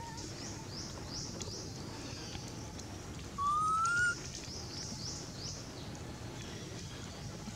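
Birds chirping steadily with short, repeated falling chirps over outdoor background noise. About three seconds in, a single rising whistle-like call lasting under a second stands out as the loudest sound.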